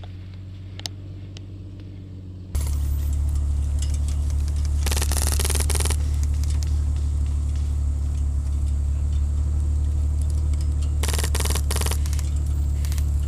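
Vehicle engine running with a steady low drone that jumps abruptly louder about two and a half seconds in. Two short bursts of rapid clatter come, one around five seconds in and one near eleven seconds.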